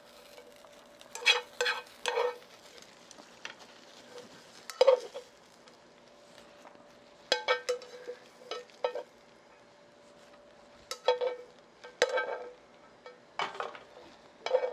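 Julienned carrot being stir-fried in a dry frying pan, a cooking utensil scraping and tapping against the pan in short clusters every second or two, over a faint steady hum.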